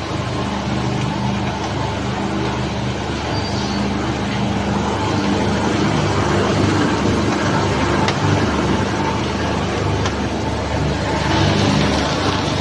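Single roller magnetic separator running with material feeding over its magnetic roller: a steady machine hum over an even mechanical rush.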